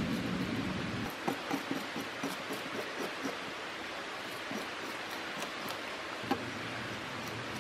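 Metal fish scaler scraping scales off a bass and then a bluegill on a ridged plastic cutting board: a run of short rasping strokes, about three or four a second, starting about a second in, with a sharper click near the end.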